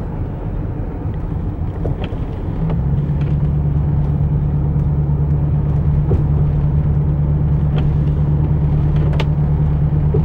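Road noise inside a Lexus LS 400 on the move: a steady low rumble, joined about two and a half seconds in by a steady low drone that holds from then on.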